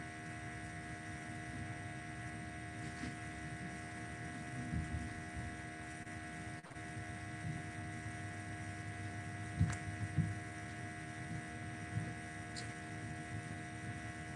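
Steady electrical hum made of several fixed tones, with a few faint soft knocks, two of them close together about ten seconds in.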